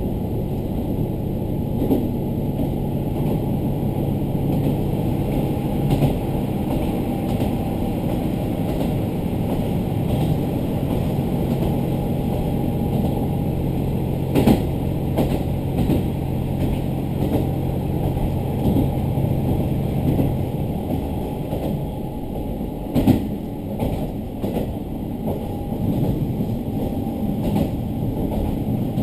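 Interior running noise of a diesel local train (KiHa 40 railcar): a steady engine note under wheel and track rumble, with a few sharp knocks from the wheels. The engine's steady note drops away about twenty seconds in while the rumble goes on.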